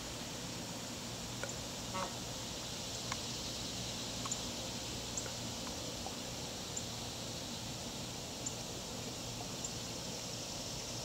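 Steady outdoor background hiss with faint short ticks about once a second; the swan makes no call.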